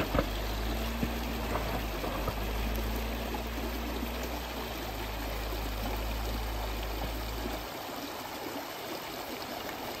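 Shallow rocky creek rushing and splashing steadily, with the low hum of a Jeep Wrangler's engine under it as the Jeep crawls through the water and up the bank; the engine hum drops away about three-quarters of the way through.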